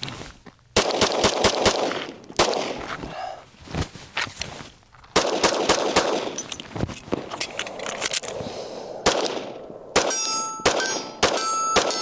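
Gen 5 Glock 19 9mm pistol fired in quick strings of shots, with short pauses between the strings. Near the end a metallic ringing sounds along with the shots.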